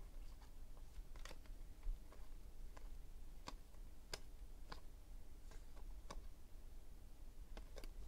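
Faint, scattered clicks and snaps of glossy trading cards (2016 Panini Unparalleled football cards) being slid off a hand-held stack one at a time, roughly one every half second to a second, over a faint low hum.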